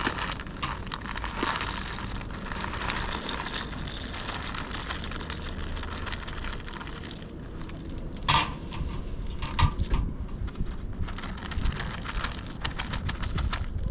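Crackling and rustling, like things being handled close by, with a few sharp knocks in the second half.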